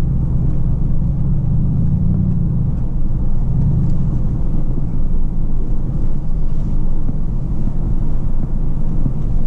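Steady low rumble of road and engine noise inside a car cabin moving at highway speed.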